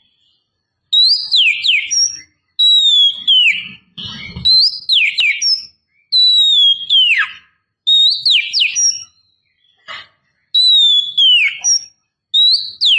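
Female oriental magpie-robin (kacer) in breeding condition, calling to draw a male. A phrase of clear whistles falling in pitch, ending on a short higher note, repeats about every two seconds. A brief low thump comes about four seconds in.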